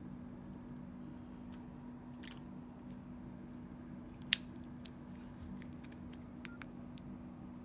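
Scattered faint clicks of a mobile phone being handled and its keys pressed, with one sharp, louder click a little past halfway, over a steady low hum.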